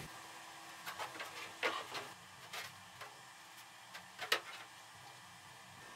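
Hollow 3D-printed PLA fuselage sections handled and fitted together: a scatter of faint plastic taps and clicks, the sharpest knock about four seconds in.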